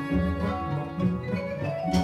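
Symphony orchestra playing, with the double basses bowing a line of low notes that change about every half second.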